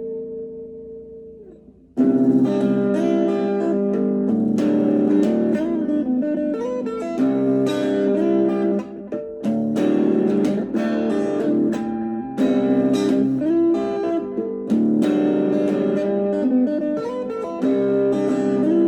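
Instrumental guitar music: a held chord fades away over the first two seconds, then plucked guitar playing comes in loudly with quickly changing notes and chords.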